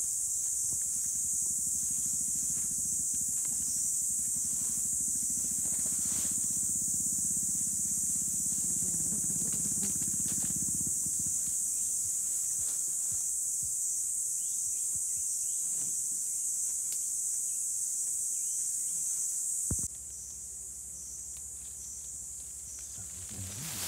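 A steady, high-pitched chorus of insects, with a low rumble under it for roughly the first half and a few faint clicks. About four seconds before the end the sound drops abruptly to a quieter level.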